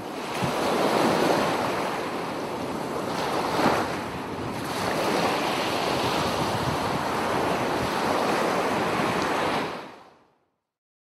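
Ocean surf breaking and washing over rocks, a steady rushing wash that swells and eases, with a louder surge about three and a half seconds in. It fades out near the end.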